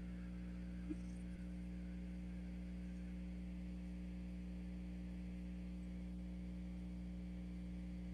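Steady low electrical hum, mains hum in the call's audio, with nothing else sounding.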